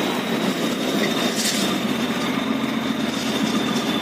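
Nissan UD truck's turbo diesel engine running steadily, heard from inside the cab, with a faint steady high whistle from the turbo.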